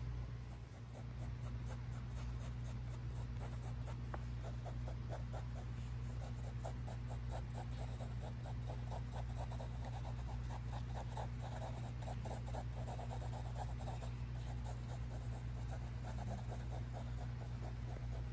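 Wooden graphite pencil sketching on notebook paper: quick, short scratching strokes repeated many times a second, starting about a second in, over a steady low hum.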